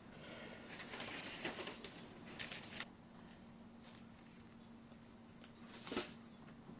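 Faint handling noise of computer parts during assembly: rustling from about one to three seconds in, then a single sharp click near the end, over a low steady hum.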